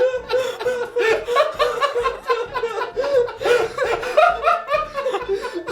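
A man's voice making a rapid run of chuckling, laugh-like vocal sounds, short pitched syllables one after another.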